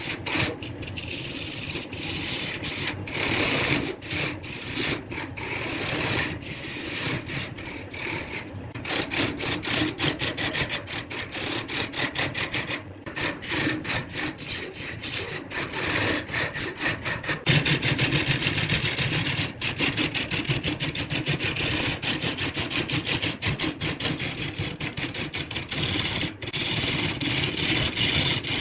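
Woodturning on a lathe: a cutting tool scraping and shaving against spinning wood, a continuous uneven rasping with frequent short breaks.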